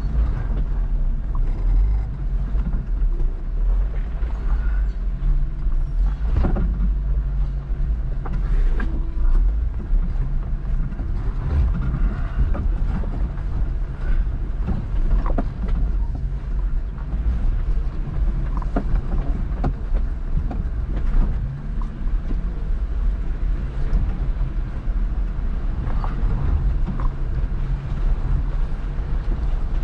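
Off-road vehicle engine running at low, steady speed on a trail, with scattered knocks and rattles throughout.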